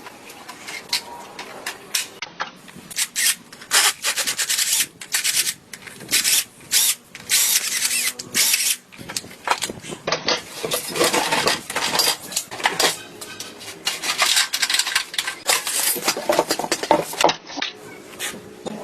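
Hand scraping on a part of an old 125 cc motorcycle under restoration: a run of short, rough, irregular strokes, coming in groups with brief pauses between them.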